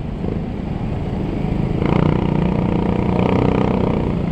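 Motorcycle engine running in slow traffic, heard from a microphone inside the rider's helmet with the visor open, over a steady road rumble. About two seconds in, a louder engine note comes in and holds for about two seconds.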